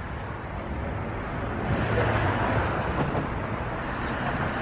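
A car engine running at a steady idle, a low, even rumble that grows slightly louder about two seconds in, with wind noise on the microphone.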